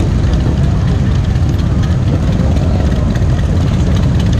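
Many motorcycle engines idling together, a steady, loud low rumble from a packed group of stopped bikes.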